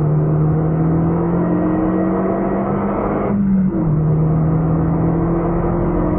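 Renault Mégane RS265's 2.0-litre turbocharged four-cylinder engine accelerating hard, heard from inside the cabin, its pitch climbing steadily. About three and a half seconds in it cuts out briefly for an upshift, drops in pitch and starts climbing again.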